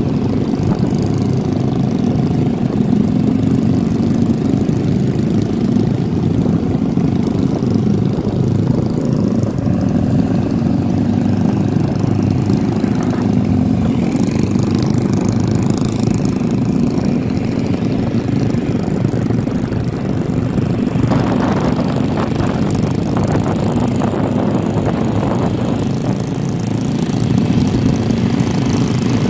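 Small motorcycle engines running steadily at cruising speed, heard from on board a moving scooter, their pitch wavering slightly with the throttle. A rougher, brighter noise rises over them for about five seconds past the middle.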